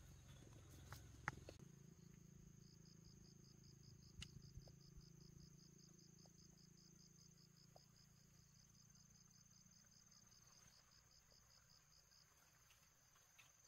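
Faint insects chirping: a steady high buzz, joined from about three seconds in by a fast, evenly pulsed chirp that stops a few seconds before the end, with a couple of light clicks.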